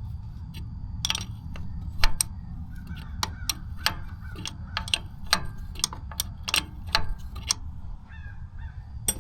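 Hand tools clinking and clacking as they are sorted and picked out: a string of irregular sharp clicks, about two a second, over a steady low rumble.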